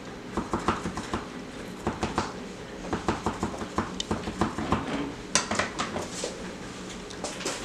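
Kitchen knife cutting around the stem of a green bell pepper on a plastic cutting board: a run of quick, irregular clicks and taps as the blade works through the pepper and knocks the board, with a few louder clicks about five seconds in.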